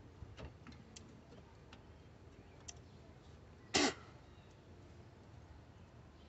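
Scattered light clicks and taps from hand work on car parts, with one short, much louder burst about four seconds in.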